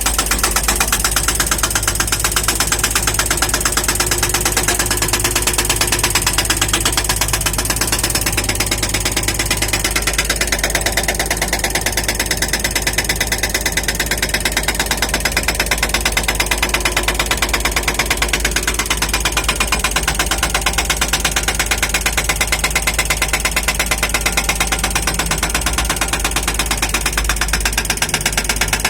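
Hydraulic hammer breaker on a Doosan DX55W wheeled excavator pounding hard ground in a rapid, steady stream of blows, over a constant low drone. The ground is too hard for the bucket teeth to break.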